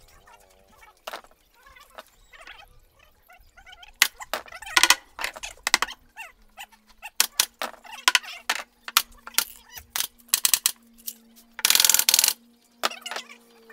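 Pneumatic nail gun firing into an MDF speaker cabinet: sharp clacks in quick, irregular runs, with a brief rushing noise near the end.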